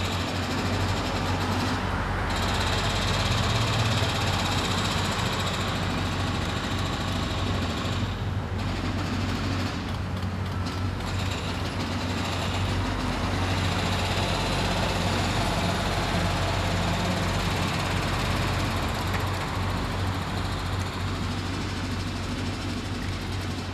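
Steady low rumble of a large engine running, as of a truck or heavy machine, over general street noise.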